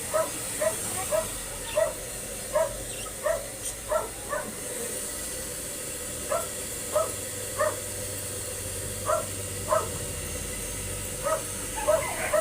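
A dog barking in short, repeated yips, often about two a second, with a pause of a couple of seconds midway. A steady hiss runs underneath.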